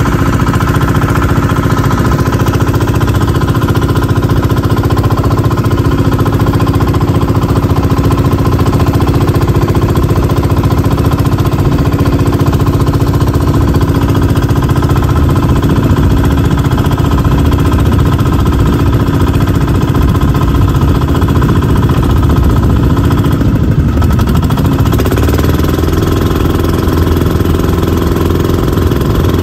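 Outrigger boat's engine running steadily and loud while under way. About 24 s in its note dips briefly, then settles at a slightly higher pitch.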